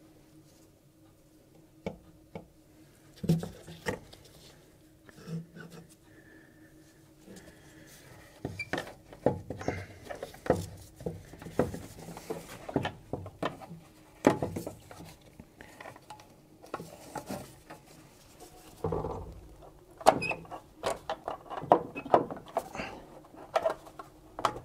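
Gloved hands handling a new plastic coolant reservoir tank and working it onto its hoses: irregular knocks, clicks and rustles of hard plastic, some sharp. They are sparse at first and much busier from about a third of the way in.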